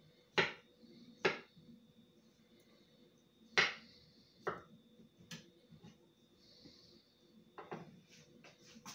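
Kitchen utensils knocking and clattering on a work surface: a handful of irregular sharp knocks, the loudest about half a second, a second and three and a half seconds in, with fainter taps in between.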